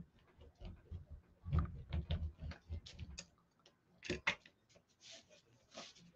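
Irregular light taps and clicks of a rubber texture stamp being inked with a small hand roller and of craft tools handled on a tabletop. A louder knock comes about four seconds in, and a few short rubbing swishes follow near the end.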